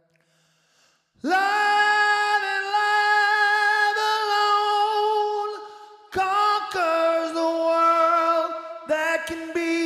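Music: after about a second of quiet, a singing voice holds one long steady wordless note, then a second long note that shifts pitch, followed by a few short notes near the end, with no other instruments heard.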